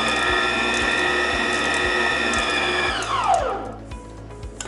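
Acekool 660 W electric stand mixer's motor running steadily with the flat beater, a whine of several tones; about three seconds in it is switched off and the whine falls in pitch as the motor winds down. A metal clink near the end.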